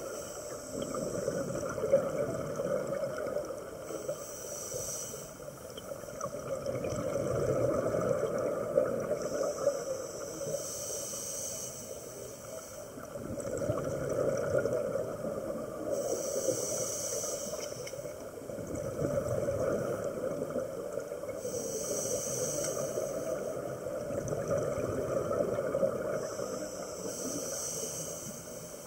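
Scuba diver breathing through a regulator, heard underwater: a hissing inhale about every five to six seconds, five times, each followed by the rumbling gurgle of exhaled bubbles.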